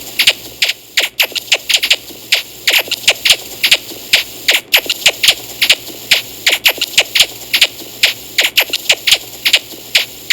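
Laser-gun sound effect: a rapid, uneven string of sharp 'pew' zaps, about three a second, each a fast falling sweep in pitch.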